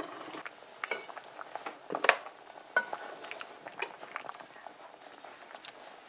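A metal spoon clinking and knocking against a metal pot as boiled potato pieces are prodded to test that they are soft, with a few sharp knocks, the loudest about two seconds in.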